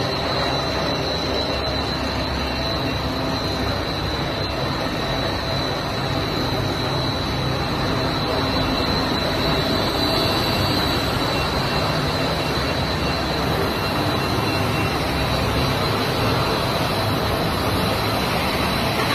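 Biochar pyrolysis line running: steady machine noise with a constant high-pitched whine.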